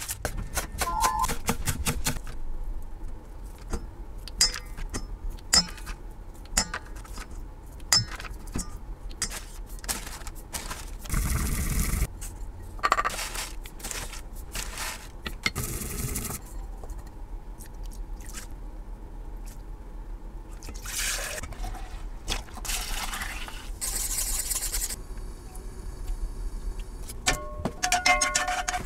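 Kitchen prep sounds: a knife chopping quickly through a bag of pea shoots on a wooden cutting board, then scattered clicks, scrapes and plastic-bag rustles as ground sesame is spooned out, and later garlic sizzling in oil in a frying pan.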